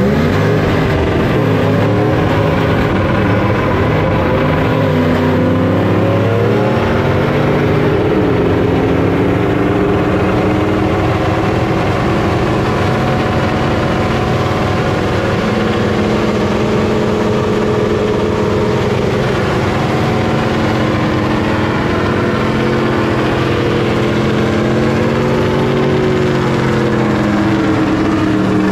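Engine of a lifted four-wheel-drive ute revving hard through a long burnout, with its tyres spinning on the asphalt. The pitch climbs and wavers over the first several seconds, then holds high and fairly steady.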